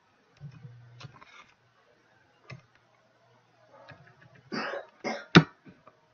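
A person coughing three times in quick succession about four and a half seconds in, the last cough the sharpest and loudest, after a few single keyboard key clicks.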